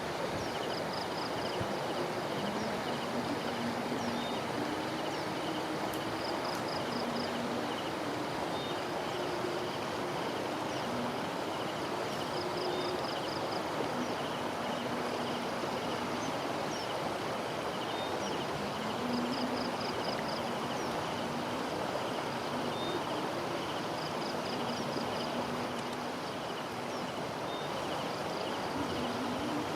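Steady rush of flowing floodwater, with short bursts of quick high chirps repeating every few seconds over it.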